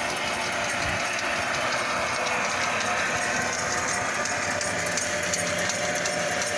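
Drum-type electric sewer drain cleaning machine running steadily, its steel cable turning inside the sewer cleanout: an even mechanical whir with light rapid clicking.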